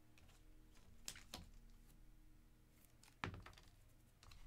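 Near silence with faint clicks of trading cards being handled, and a sharper tap a little past three seconds in.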